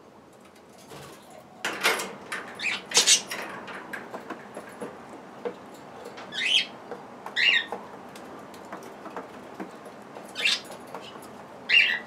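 Pet budgerigars chirping: a cluster of short, harsh calls about two seconds in, then single chirps every few seconds, with a few light clicks between them.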